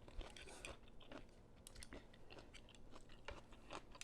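Faint chewing: soft, irregular crunches and mouth clicks of a person eating a bowl of vegetable pho.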